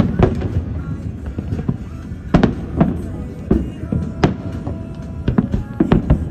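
Fireworks going off: a run of sharp bangs, some coming close together, over a steady low rumble.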